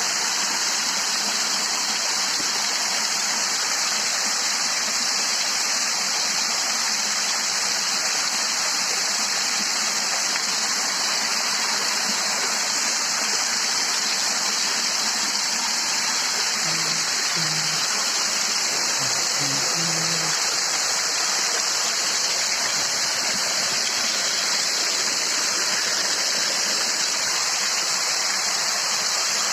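Steady rush of falling water from a waterfall, even and unbroken.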